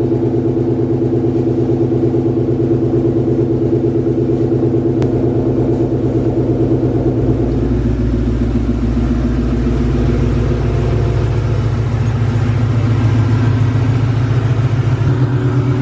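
1998 Ford Mustang engine idling steadily just after being started on a freshly recharged battery, after weeks of sitting; the low rumble grows a little about halfway through.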